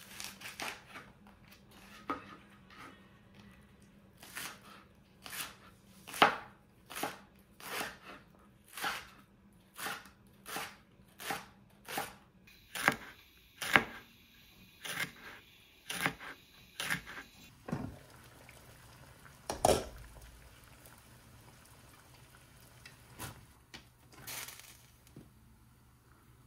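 Kitchen knife slicing a green onion and then a spicy green chili pepper on a plastic cutting board, each cut a sharp knock of the blade on the board, about two a second. The cutting stops about 17 seconds in, followed by one louder knock a couple of seconds later and then a few faint handling sounds.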